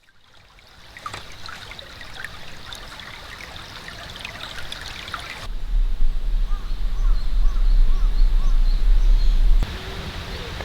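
Outdoor ambience that fades in, with a trickling, water-like sound. Small chirps repeat through the middle. A heavy low rumble sets in about halfway and cuts off shortly before the end.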